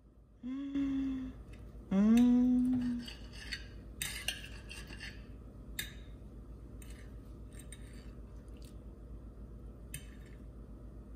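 Two short hummed "mmm" sounds, the second longer and louder, then a knife and fork clicking and scraping against a ceramic plate while fried eggs and vegetables are cut, in scattered light clinks.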